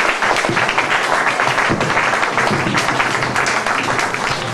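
Audience applauding steadily, with two acoustic guitars playing underneath.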